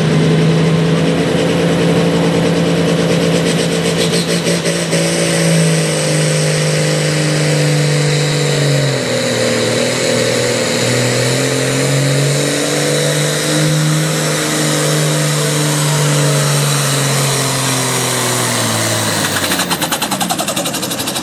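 Diesel pro stock pulling tractor running flat out under heavy load as it drags a weight-transfer sled. Its pitch sags partway through and climbs back, then falls away near the end as the pull finishes.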